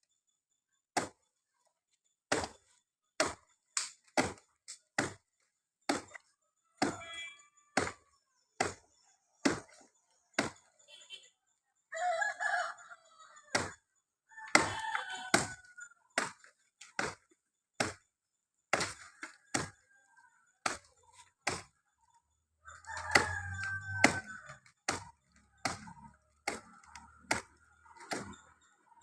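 Chopping at a coconut palm trunk: a steady series of sharp strikes, about one or two a second, with a rooster crowing a few times in between.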